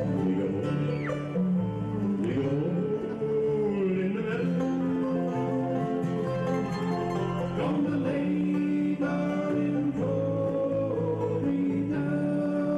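Live bluegrass band playing: banjo, mandolin and guitar together, with held lead notes that bend in pitch above the picking.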